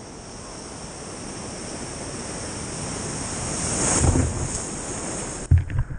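Ocean surf washing around a camera held at water level, building as a wave breaks over it and loudest about four seconds in. Near the end, water slaps and knocks against the camera.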